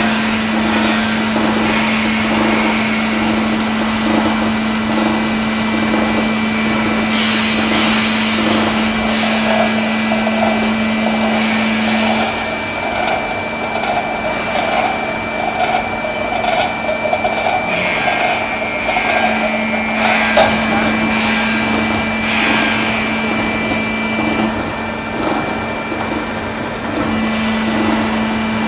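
Water-spray quench on a steel pipe induction quenching and straightening line: the quench jets hiss over the pipe while the line's machinery runs with a steady low hum. The hiss drops off about twelve seconds in as the spray thins, and the hum cuts out for several seconds in the middle before returning.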